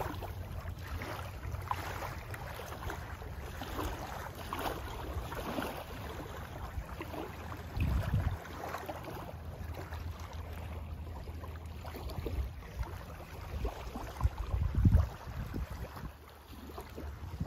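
Wind buffeting the microphone, with small waves lapping at the lakeshore. Two stronger gusts come about 8 seconds and 15 seconds in.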